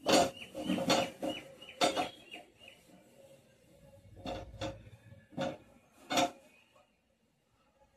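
Sharp metal clanks and knocks from a stainless-steel two-burner gas stove being handled and shifted on the floor while it is wiped down, about ten knocks over six seconds, then quiet. A bird chirps quickly and repeatedly in the first two seconds.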